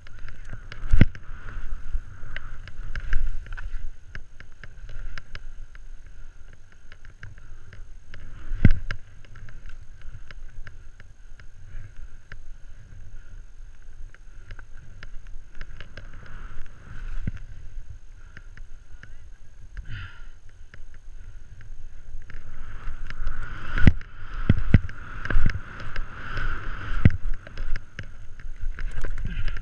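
Skis running through deep powder snow: a continuous rushing hiss, with sharp thumps as the skis hit bumps, one about a second in, a loud one near nine seconds, and a quick run of them in the last six seconds.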